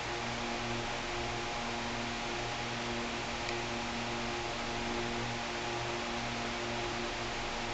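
Steady low hum with a hiss: workshop background noise, with one faint click about three and a half seconds in.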